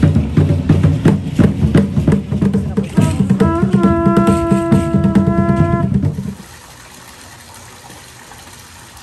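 Drums beating a fast, dense rhythm for a pre-Hispanic dance, joined about three seconds in by a conch shell trumpet blown in one long note that slides up at its start. Both cut off suddenly a little past halfway, leaving only faint background noise.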